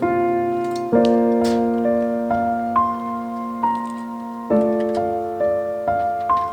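Background piano music: a slow melody of single notes over ringing chords.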